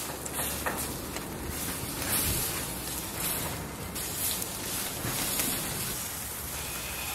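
Steady wind noise over a charcoal grill, with a few faint clicks and scrapes as a knife scores the crisp skin of a whole roasted lamb; kitchen scissors take over near the end.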